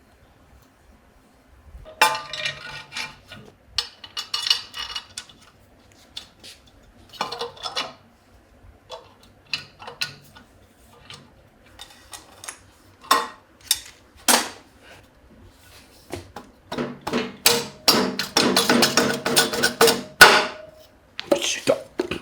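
Hand tools and metal engine parts knocking and clinking during engine assembly work: scattered sharp taps and clinks, then a longer stretch of ringing metallic clatter near the end.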